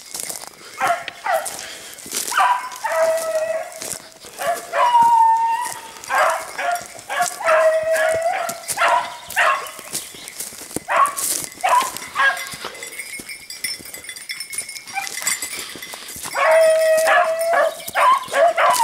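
Beagles baying on a hare's trail: long drawn-out bays mixed with shorter barks, coming in bursts with a short lull about two-thirds of the way through.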